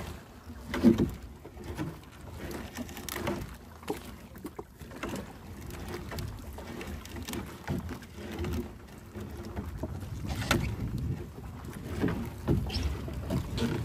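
Irregular knocks and clatters in a small fishing boat as a sinking gill net is hauled aboard, over a low rumble of wind and waves.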